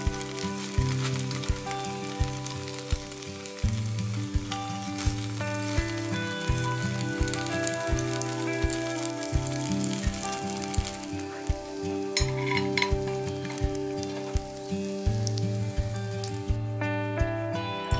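Gyoza frying on a griddle plate, sizzling steadily as the water around them boils off, under background music. The sizzle drops away near the end.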